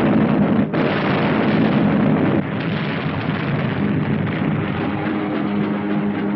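Explosions on a 1940s film soundtrack: a dense, continuous din of blasts, cut off by a brief gap about three quarters of a second in and dropping somewhat in level about two and a half seconds in.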